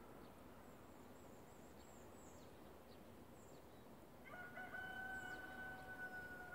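A rooster crowing faintly: one long crow starting about four seconds in, a short opening note then a long held note that sags slightly at the end. Small birds chirp faintly before it.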